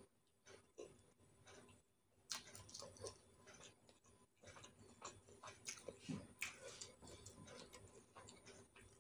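Faint eating sounds: irregular soft clicks and smacks of chewing close to the microphone, sparse at first and busier from about two seconds in.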